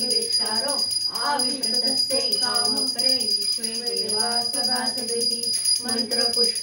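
Devotional aarti singing with a puja hand bell rung rapidly and continuously, its high metallic ring running steadily under the voice.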